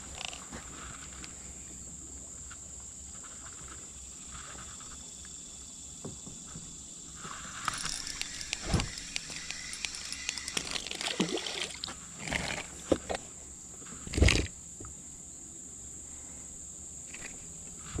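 A steady high insect buzz. From about halfway comes a stretch of rattling, splashing and handling noise, with two loud hollow knocks against the plastic kayak, as a small largemouth bass is landed.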